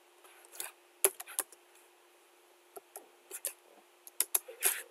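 Typing on a computer keyboard: irregular, quick keystrokes in small clusters, as a word is typed into a script.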